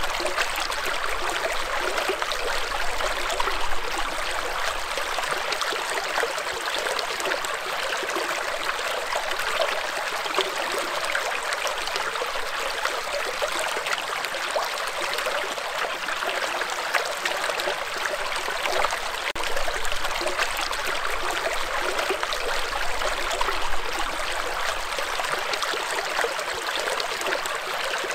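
Shallow rocky stream running over and between boulders in small riffles: a steady rush and babble of water.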